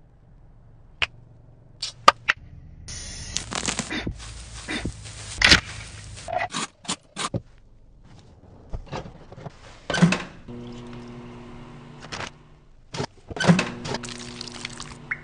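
Food-preparation handling noises in quick succession: sharp knocks and thuds of bowls and utensils, and a few seconds of rustling and scraping, with faint background music.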